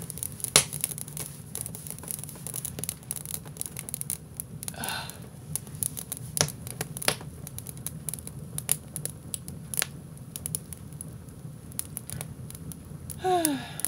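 Wood fire crackling in a wood stove with the door open, kindling and split wood popping and snapping irregularly over a steady low hum. Near the end there is a brief sound that falls in pitch.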